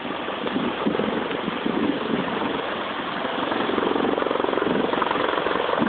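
Aircraft flying overhead: a steady engine drone that grows a little louder toward the end.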